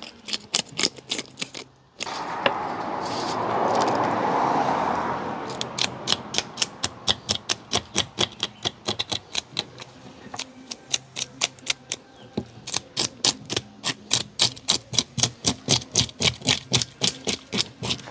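A fish being scaled on a wooden tabletop: quick scraping strokes rasp over the scales, about four or five a second. A loud rushing noise swells and fades over the first few seconds.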